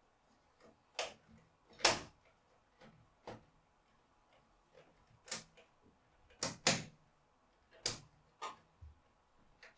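Plastic wiring-duct covers being pressed and snapped onto slotted cable duct: a string of about nine sharp clicks and knocks at irregular spacing, the loudest about two seconds in and a close pair around six and a half seconds.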